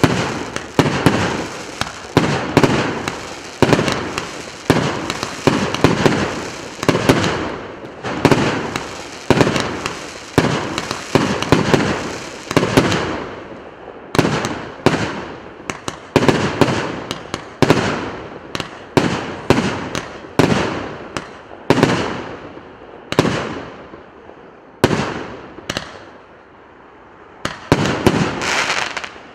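A 100-shot, 1.25-inch firework cake firing its shots one after another in a steady volley, about one to two a second, each shot cracking and then fading. About 26 seconds in there is a short lull, then the firing starts again.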